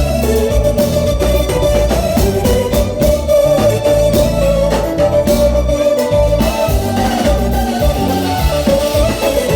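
Loud music with a steady beat, led by a sustained organ-like keyboard over heavy bass.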